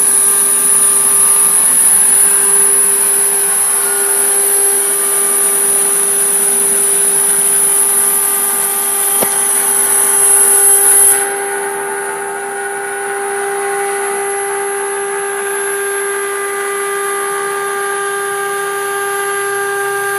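CNC engraving and cutting router for sign-making running, a steady high spindle whine over a lower mechanical hum. About halfway through, the high whine weakens and the level drops, then holds steady.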